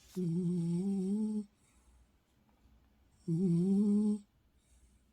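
A sleeping dog snoring in a tuneful, humming tone that sounds like singing: two drawn-out snores of about a second each, one at the start and one about three seconds in, their pitch wavering like a hummed note.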